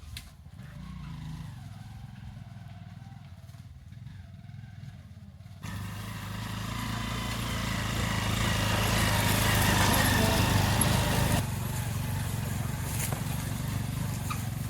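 A small vehicle's engine running steadily with a low hum. About six seconds in the sound jumps abruptly louder and noisier, swelling for a few seconds, then drops back abruptly a little before the end.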